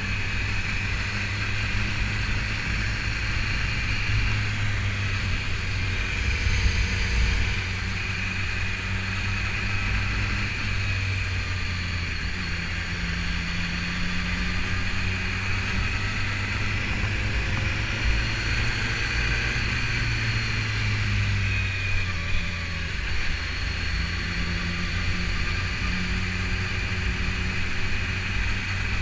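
BMW S1000RR inline-four sport-bike engine running at a steady cruise, its pitch holding nearly level throughout.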